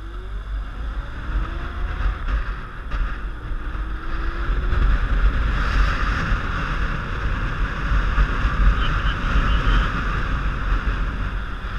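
Touring motorcycle accelerating away from a stop, its engine note gliding upward more than once as it is taken up through the gears. Wind buffeting on the helmet-mounted microphone grows louder as speed builds.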